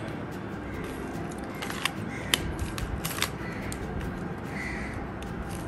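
Banana Cube twisty puzzle being turned by hand through an algorithm: irregular plastic clicks and clacks as the layers rotate, a few of them sharper than the rest.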